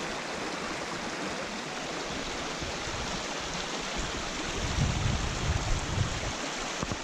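Small snowmelt creek rushing steadily over rocks. About five seconds in, low buffeting from wind on the microphone comes in for a second or so.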